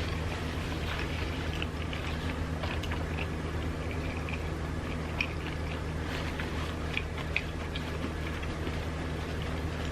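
Close-miked chewing of a sushi roll: small wet clicks and smacks from the mouth, a few of them sharper. A steady low hum runs underneath.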